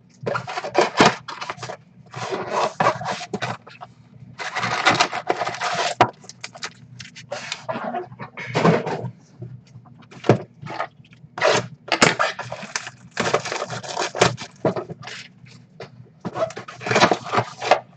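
Foil trading-card pack wrappers crinkling and tearing open, with cards being handled, in repeated rustling bursts broken by sharp clicks.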